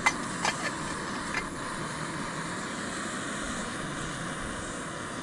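Metal lid clinking down onto an MSR cooking pot, four clinks in the first second and a half, over the steady hiss of a canister camp stove burning.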